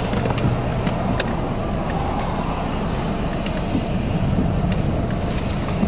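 Steady low roar of wind from a large tornado close by, with a car passing on the wet road and a few sharp clicks.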